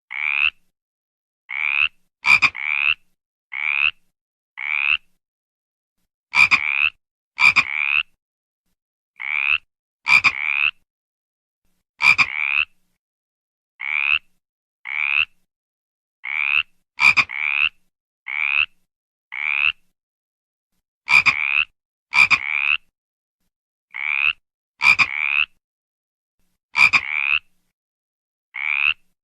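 A frog croaking: short calls about a third of a second long, coming singly or in close pairs roughly once a second, each rising slightly in pitch, with complete silence between them.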